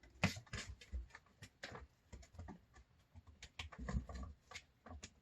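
Kittens moving about: scattered light taps and scuffles of small paws, several a second, with a few soft thumps about four seconds in.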